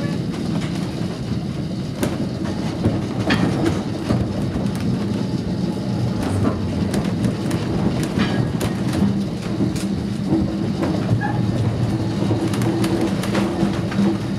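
1902 cable-hauled Great Orme Tramway car running on its rails: a steady low hum and rumble with scattered clicks and knocks of wheels on track.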